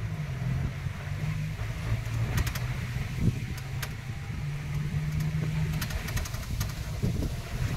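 Engine of an open-top safari vehicle running steadily as it drives along a rough dirt forest track. There is a low hum, with a few sharp clicks and rattles from the bumpy ride.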